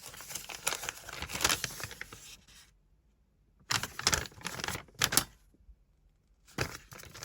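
Paper instruction leaflets rustling and crinkling as they are handled, in several bursts with quiet gaps between.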